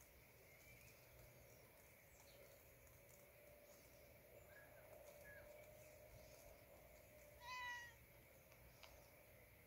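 A kitten meows once, short and high-pitched, about three-quarters of the way in; otherwise near silence.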